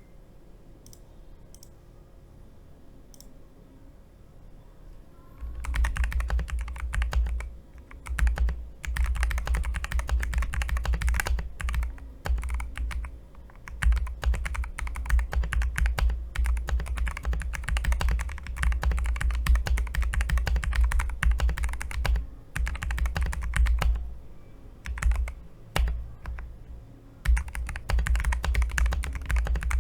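Typing on a VN66 keyboard, fast runs of key clicks with a deep thock, starting about five seconds in and broken by several short pauses.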